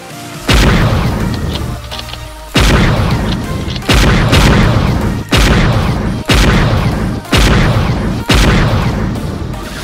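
A string of loud gunshot-like booms, about eight, one every second or so, each dying away over about a second, over background music.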